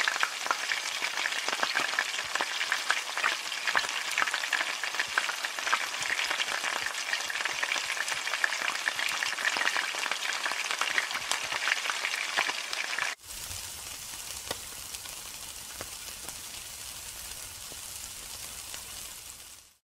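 Food frying in hot oil in a wok, a dense crackling sizzle. About 13 seconds in it cuts to a quieter, steadier sizzle over a low rumble.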